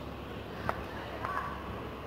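Low, steady outdoor background noise with one sharp click about two-thirds of a second in and a faint, brief high tone a little after a second.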